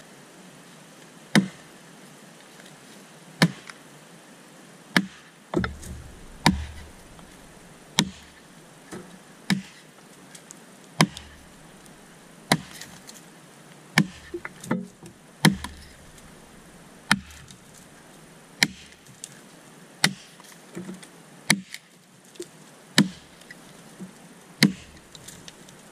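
A restored vintage Evansville axe chopping into a felled log: sharp, steady strikes about every second and a half, some followed by a lighter second hit, as the notch is cut deeper.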